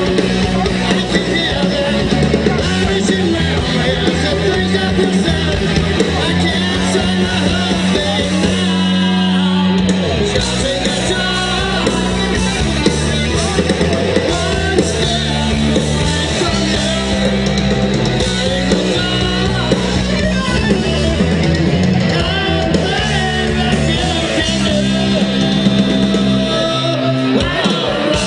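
A live rock band playing loud, heavy rock on electric guitar, bass and drums.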